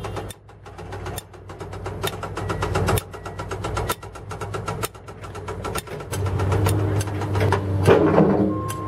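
An engine running steadily with rapid clicking or clattering over it, louder from about two-thirds of the way through.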